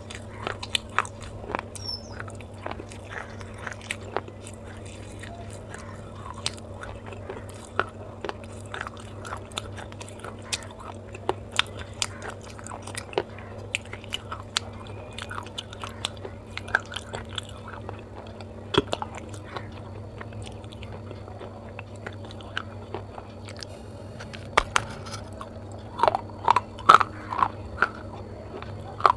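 Pieces of baked clay pot being bitten and chewed right at the microphone: a steady run of sharp, dry crunches, growing louder and closer together near the end. A low steady hum runs underneath.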